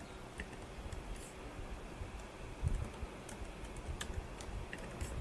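Computer keyboard keys pressed a few times, separate light clicks spread out with pauses between them, as Blender shortcuts such as Tab are typed.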